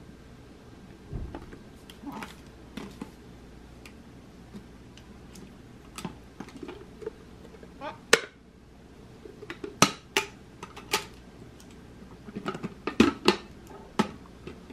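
Hard lucite plastic handbags clicking and knocking as they are handled and set down, a scatter of sharp taps that grows busier in the second half.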